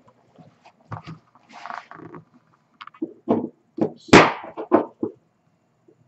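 Knocks and rustles from an iPad in a folio case being handled and set down on a wooden table: a series of separate knocks, the loudest about four seconds in.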